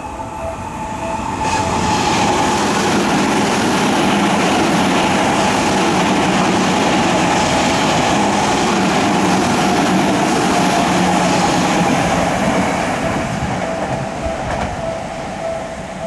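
Electric commuter train passing alongside the platform: its wheel and motor noise builds about a second and a half in, stays loud for about ten seconds, then fades. A level-crossing warning bell keeps ringing in a steady pulse, heard plainly before the train drowns it out and again near the end.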